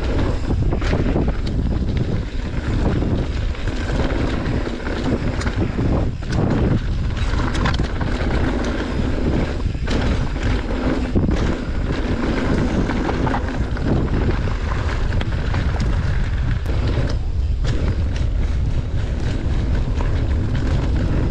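Wind rumbling on the camera microphone while riding a mountain bike along a trail, mixed with tyre noise and frequent knocks and rattles of the bike over rough ground.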